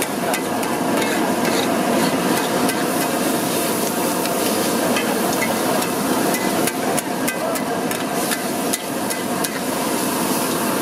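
Metal spatula clanking and scraping on a large flat iron tawa as onions and tomatoes are chopped and stirred, in quick irregular strikes, over a steady sizzle of frying.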